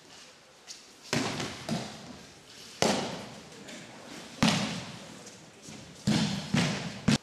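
A run of about seven sharp thuds as an aikido partner is thrown and breakfalls onto tatami mats, body and hands slapping the mat. Each thud echoes briefly.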